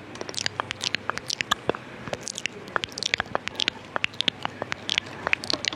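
Close-miked wet mouth sounds: rapid, irregular tongue and lip clicks and smacks, several a second.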